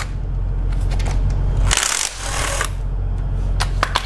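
Cordless impact wrench hammering in two runs with a short pause between, backing out the timing chain tensioner bolts. Metallic clinks come in the pause.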